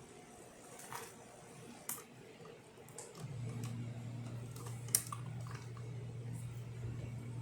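Gaggia Babila super-automatic espresso machine: a few sharp clicks, then about three seconds in a steady low hum starts up and keeps running as the machine works through its test cycle.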